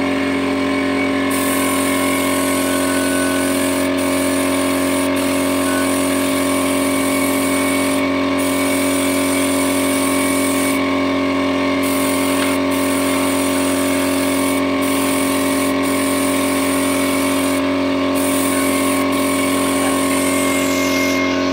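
Gravity-feed spray gun hissing as it sprays wood polish, over the steady hum of the air compressor that feeds it. The hiss drops out briefly about ten times as the trigger is let off and pulled again.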